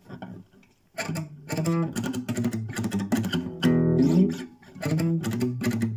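Classical guitar fitted with a homemade compensated bridge saddle, played with a pick. After a quiet first second comes a run of single picked notes, with a brief gap about four and a half seconds in before the playing resumes.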